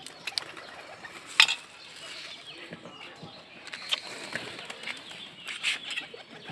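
A few sharp clicks and snaps, the loudest about a second and a half in, as dragon fruit shoots are cut and handled, with birds calling in the background.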